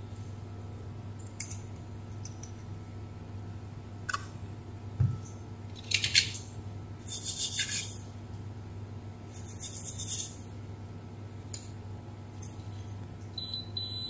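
Small clicks and short scratchy scrapes of metal tweezers and probe tips on a circuit board's chip pins, over a low steady hum. Near the end a digital multimeter's continuity buzzer starts a steady high beep, signalling a low resistance between the probed pins.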